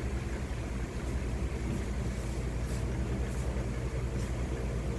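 A steady low machine-like hum runs throughout, with a few faint brief rustles now and then.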